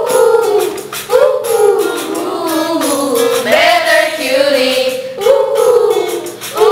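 Pop song with a group of female voices singing wordless "hooh" phrases over a backing track with a steady beat and tambourine-like percussion.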